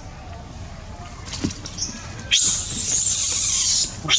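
Long-tailed macaque screaming: a loud, shrill, high-pitched scream starts a little over halfway through, breaks off briefly and starts again near the end.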